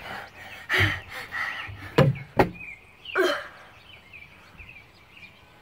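Two sharp knocks on the wooden boards of a playground fort deck about two seconds in, as a boy hauls himself up onto it, with short wordless vocal sounds from him before and after. Faint bird chirps near the end.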